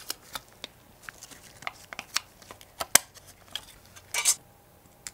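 Small hard model-car parts being handled and set down on a tabletop: a series of sharp clicks and taps, with a short scraping rustle about four seconds in.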